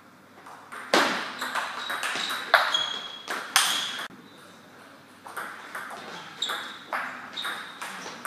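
Table tennis ball clicking sharply back and forth between bats and table in a rally, some hits leaving a short high ring. The rally stops about four seconds in, and after a pause of about a second a new rally begins.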